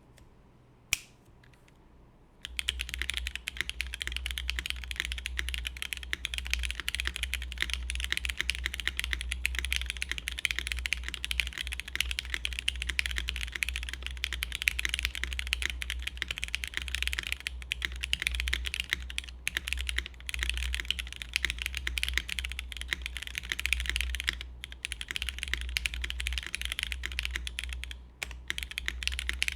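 Continuous typing on a custom mechanical keyboard with linear Cherry MX Black switches in an o-ring-mounted aluminum plate, under GMK keycaps. A single keypress about a second in, then steady fast typing from about two and a half seconds on, with brief pauses.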